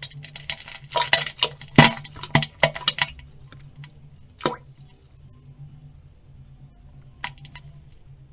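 Pooping sound effect: a quick run of wet splats and plops for about three seconds, then a few scattered plops and drips.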